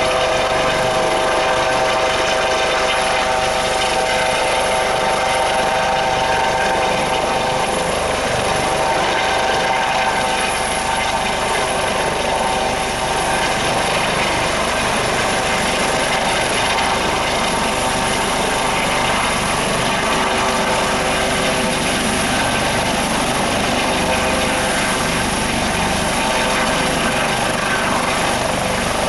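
Twin-turbine HH-65 Dolphin helicopter hovering: a loud, steady turbine whine with rotor noise that holds unchanged.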